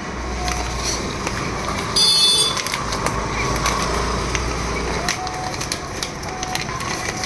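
Small accessories and cables being handled, with light clicks over a steady background hum; a brief high-pitched tone sounds about two seconds in.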